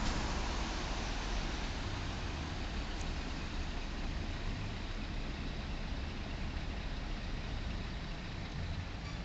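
Fire engine's diesel engine idling in the station bay, a steady low rumble under a constant wash of noise.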